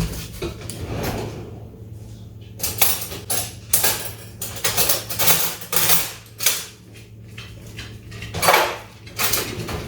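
A spoon clinking and scraping against a bowl in irregular taps while icing is scooped and drizzled.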